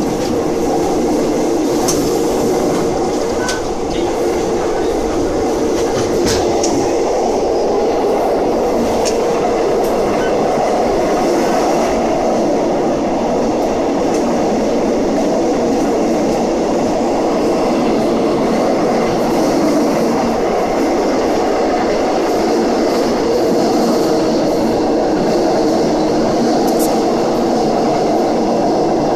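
Passenger train running at speed, heard from inside a carriage by the window: a steady loud rumble of wheels on rail, with a few sharp clicks now and then.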